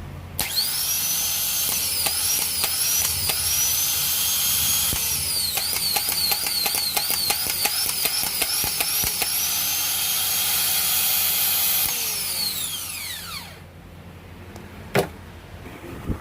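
Rebuilt 12 V Delco Remy starter motor spinning free on a bench test, with a high, steady whine. The whine dips and recovers many times in the middle, then falls away as the motor winds down. A sharp click comes near the end.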